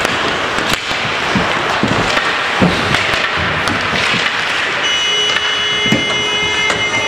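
Ice hockey play in an indoor rink: skates scraping the ice with scattered sharp clacks of sticks and puck. About five seconds in, a steady high tone joins and holds.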